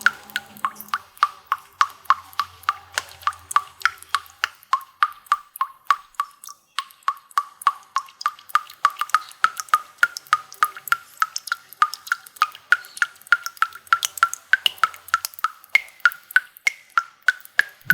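Water drops falling into water in a fast, steady series of plinks, about four or five a second, each a short pitched blip whose pitch creeps slightly higher over the stretch.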